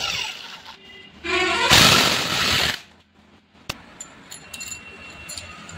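Air impact wrench running in two loud bursts, the second about a second and a half long, undoing the cylinder head bolts of a Yamaha R15 v2 engine. After it, a sharp click and light metallic clinks of parts being handled.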